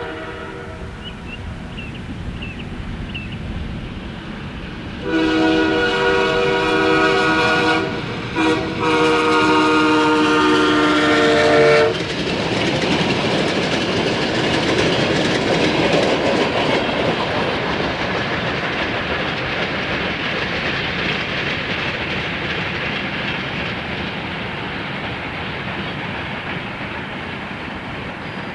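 Canadian Pacific ALCO diesel locomotive's horn sounding a long blast, a short one and a long one for the highway grade crossing, about five to twelve seconds in. Then the locomotive and freight cars roll past close by, wheels clacking over the rail joints, the sound slowly fading.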